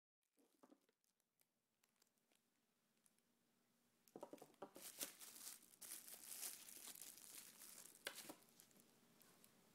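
Near silence, then about four seconds in a plastic bag holding the tablet's accessories starts crinkling as it is handled, with one sharper crackle near the end.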